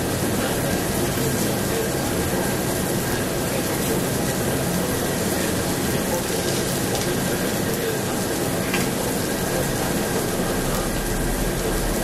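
Pork belly sizzling on a tabletop grill, a steady hiss throughout.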